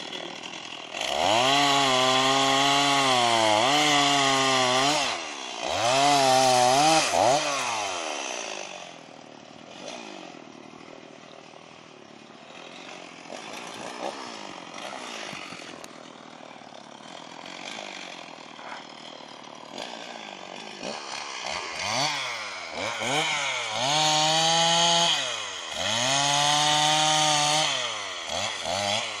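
Chainsaw revved hard in several bursts of a few seconds, its pitch sagging and recovering as it cuts, with a longer quieter stretch of idling in the middle.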